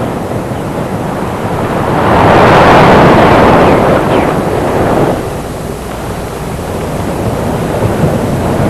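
Ocean surf on a beach: a wave breaks and washes in, swelling about two seconds in and falling away a few seconds later, over a steady hiss of surf and wind.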